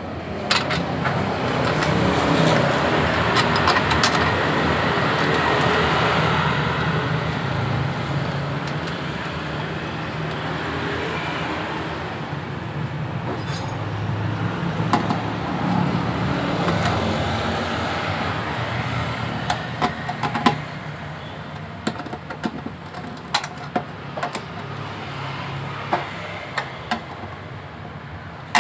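Steady rumble of vehicle engines running. In the second half, sharp metallic clicks and clinks from a socket wrench working on the bolts of a motorcycle's fuel pump mounting.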